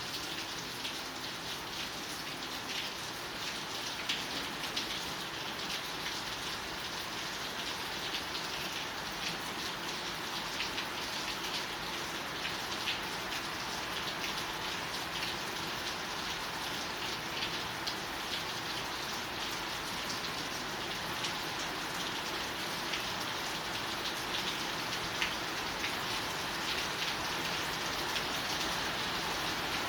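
Steady rain falling, a continuous hiss dotted with many small, sharp ticks of drops striking a surface.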